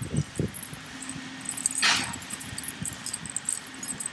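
Metal leash clips and collar tags on two small leashed dogs jingling lightly as they move about on grass, with a brief hissing rustle about two seconds in.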